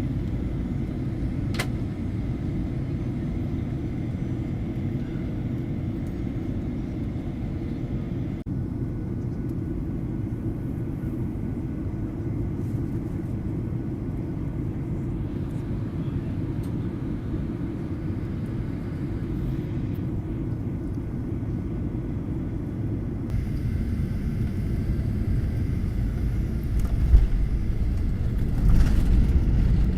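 Steady low rumble of a vehicle interior, in several pieces cut together, growing louder over the last few seconds.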